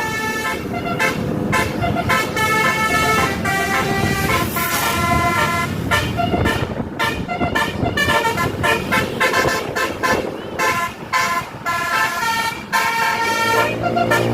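Basuri telolet horn on a tour bus playing a fast melody of short, stacked multi-tone honks that change pitch from note to note, over a steady low rumble.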